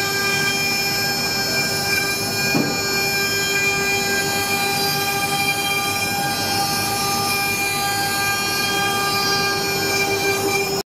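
CNC wood router carving a relief into a wooden board: a steady, high whine at a constant pitch from the spindle and dust extraction, over a rushing noise of the cut.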